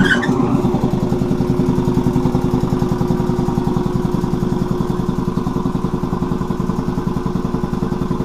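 Quincy 310 two-stage reciprocating air compressor, belt-driven by an electric motor, starting up abruptly and then running steadily with a fast, even pumping beat.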